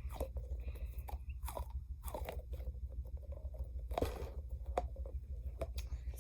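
Air stress balls being squeezed and handled inside their plastic packaging: irregular crinkling and crunching with scattered sharp clicks, over a steady low hum.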